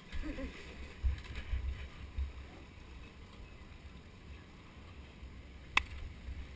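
Go-kart rolling across concrete with its engine off: uneven low thumps and rumble, and one sharp click near the end.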